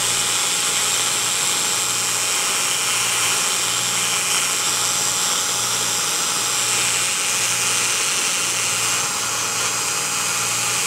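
Cordless drill spinning a small abrasive wheel at steady speed, grinding rust out of the eye of an old steel ball peen hammer head held in a vise.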